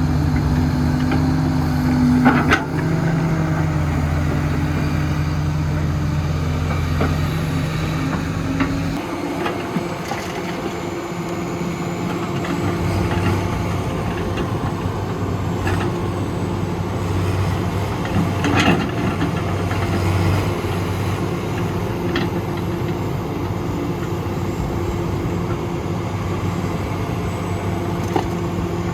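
Heavy diesel construction machine engine running steadily, its note changing about nine seconds in, with a few sharp metallic knocks.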